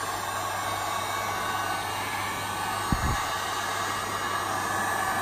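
Electric heat gun running steadily, its fan blowing hot air with a low hum, used to heat a glued plastic cover so the adhesive lets go. A light tap about three seconds in.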